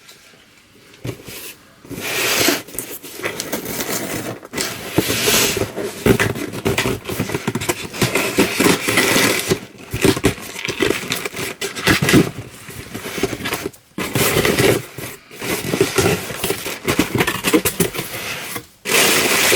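A cardboard subscription box being opened and its packing handled: irregular scraping, crinkling and tearing of cardboard and paper, in bursts with short pauses.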